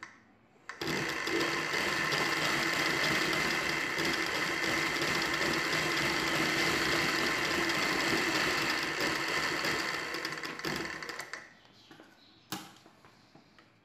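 Motor-driven Ralson sewing machine running steadily as it stitches through cloth: it starts about a second in and runs down to a stop after about ten seconds. A single sharp click follows near the end.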